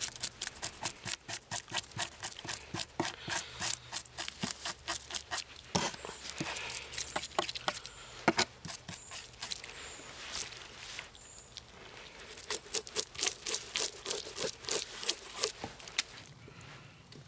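Knife scraping the scales off a pike on a wooden board: quick repeated scraping strokes, about four a second, with a couple of short pauses.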